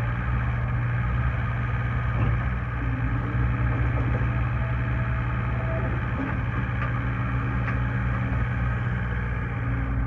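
John Deere 318D skid steer's diesel engine running steadily while the loader arms work the bucket, with a few faint clicks.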